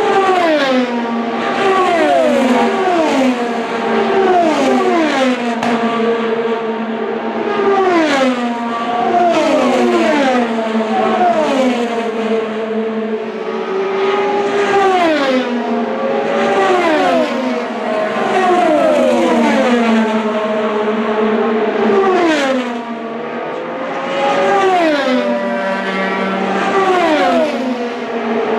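IndyCar twin-turbo V6 race cars passing at speed one after another, each engine note dropping sharply in pitch as it goes by. More than a dozen pass-bys follow over a steady drone of cars further round the track.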